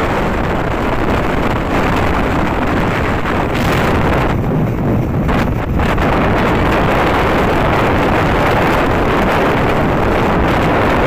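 Strong wind rush over the microphone of a moving motorcycle, with the rumble of the engine and road underneath; steady throughout.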